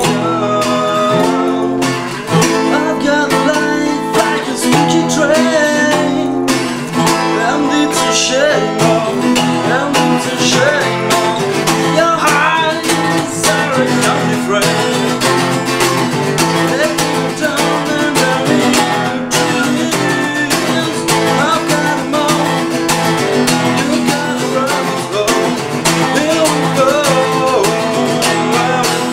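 Acoustic guitar and resonator guitar playing together, a strummed rhythm under wavering, bending lead lines, with no break.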